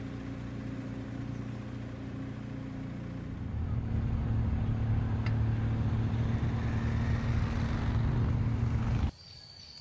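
Motor vehicle engine running steadily close by, heard with road and wind noise; it grows louder a few seconds in, then cuts off abruptly near the end. A thin, steady high insect chirr remains after the cut.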